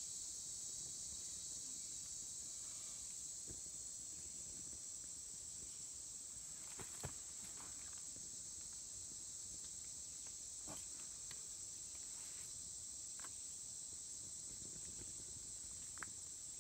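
Steady high-pitched chorus of insects, with a few faint clicks and snaps scattered through it.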